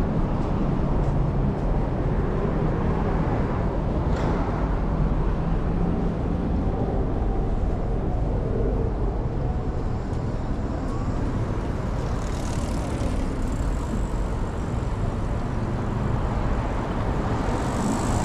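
Street traffic noise: a steady rumble of cars running along the road, with a rise of high hiss from passing vehicles about twelve seconds in and again near the end.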